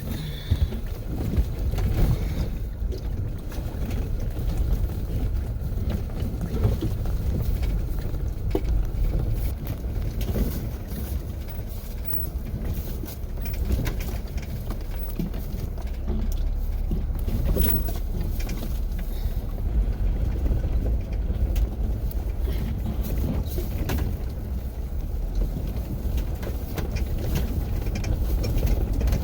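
Jeep driving slowly over a rough dirt road: a steady low rumble with frequent small knocks and rattles.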